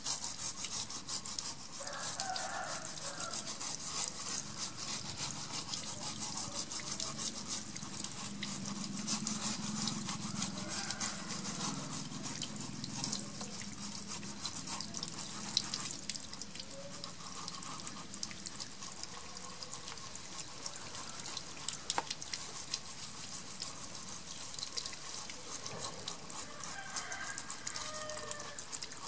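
A sponge rubbing in quick scratchy strokes over a small turtle's hard shell, with running water splashing over the shell and onto tiles.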